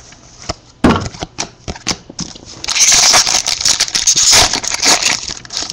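Foil wrapper of a pack of football trading cards being torn open and crinkled: a few sharp clicks and a tap first, then about two seconds of dense crinkling.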